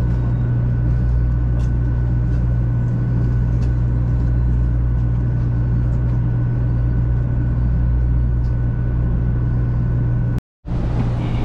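Steady low rumble and hum of a 500 series Shinkansen running, heard inside the carriage, with a faint steady whine above it. The sound cuts out abruptly for a moment about ten seconds in, then carries on.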